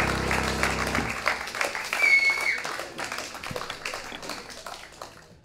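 Audience applauding after a live song. The band's last held chord rings out for about the first second, and then the clapping fades away toward the end.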